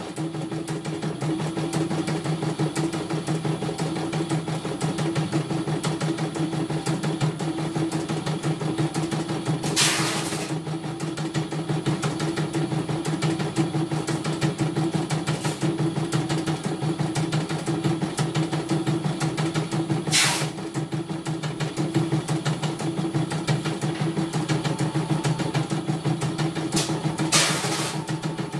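CNY E900 computerized embroidery machine stitching a design: a steady, fast needle rhythm. Short noisy bursts break in three times, at about ten seconds, twenty seconds and near the end.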